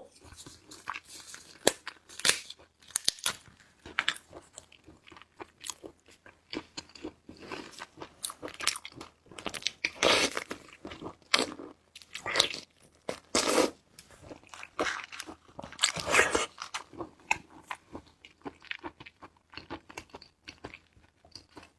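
Close-miked eating of seafood: irregular crunching bites and wet chewing, with the loudest crunches a few seconds apart.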